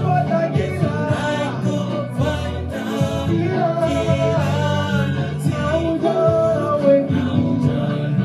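Swahili gospel song: singing over a band with bass and guitar.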